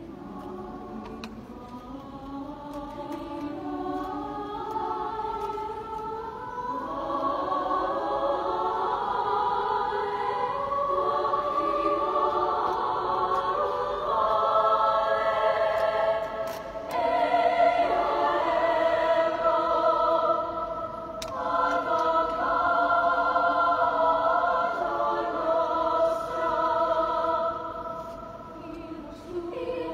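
Youth choir singing a cappella in several voice parts, holding chords. The sound swells steadily through the first half, then continues full with brief breaths between phrases.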